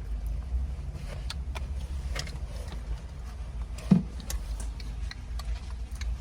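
Wind buffeting the microphone, a steady low rumble, with scattered small clicks and one louder thump about four seconds in.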